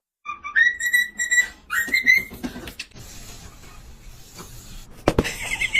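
High whistle-like sound: two steady, pitched notes of about a second each, the second rising slightly, followed by a short loud sound about five seconds in.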